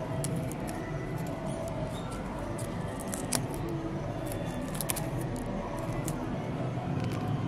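Leaves and thin vine stems rustling, with many scattered small snaps and clicks, as seed pods are picked off the vine by hand.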